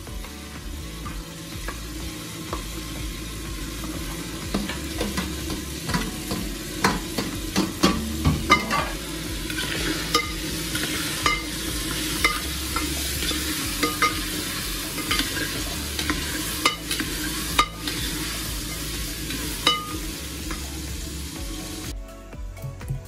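Meat and chopped tomatoes sizzling and frying in an aluminium pot while a spoon stirs them, with repeated clicks and knocks of the spoon against the pot's side. The sizzling stops abruptly near the end.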